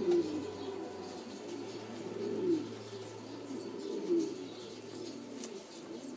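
Laudino Sevillano pigeons cooing: deep rolling coos repeating every second or two, three of them louder than the rest, over a steady low hum.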